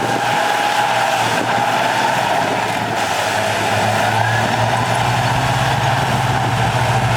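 Heavy earthmoving machinery running steadily, a diesel engine drone with a higher whine over it; the low engine hum grows stronger from about four seconds in.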